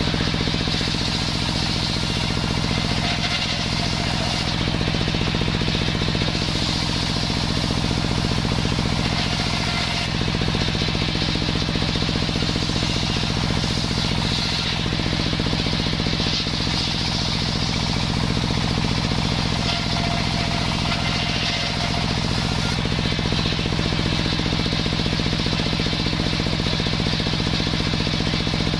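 Table circular saw ripping sengon wood into battens: the spinning blade cuts continuously over the steady hum of the machine's drive.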